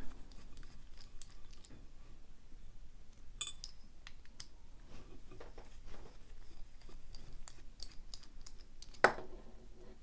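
Small Phillips screwdriver backing two screws out of the back of a mortise lock cylinder: scattered faint scratchy clicks of the bit and metal parts, with one sharper metal clink about nine seconds in.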